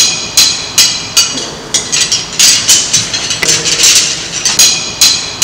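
Wooden bars of a handmade xylophone being struck: an irregular run of sharp, ringing knocks, about two or three a second.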